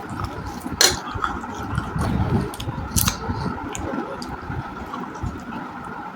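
Close-miked crunching and chewing of roasted clay chunks: a sharp crunching bite about a second in and another about three seconds in, with steady chewing between.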